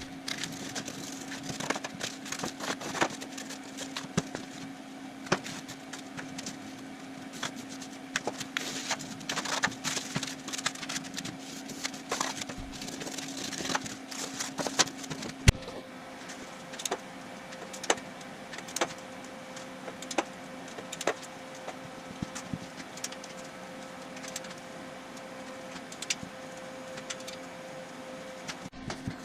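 Shop work on a cardboard body mock-up: scattered clicks, taps and knocks of cardboard pieces being cut, handled and fitted, over a steady low hum that steps up in pitch about halfway through.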